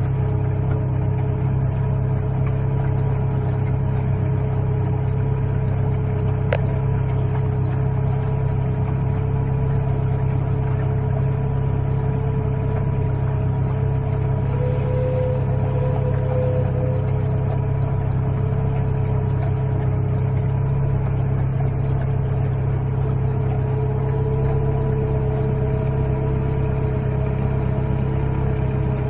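80 hp four-cylinder inboard/outboard engine of a 1965 Thompson Sea Lancer wooden runabout running steadily while the boat is under way, heard from aboard as an even drone.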